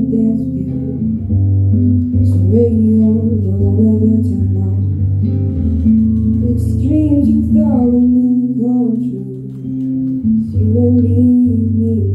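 A woman singing to her own acoustic guitar, with the guitar's low notes held steadily underneath her voice.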